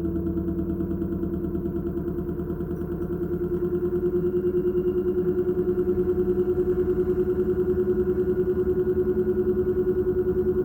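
LG direct-drive washing machine spinning: a steady motor whine that climbs slowly in pitch from about three seconds in as the drum gathers speed, with a fast, even pulsing from the turning drum.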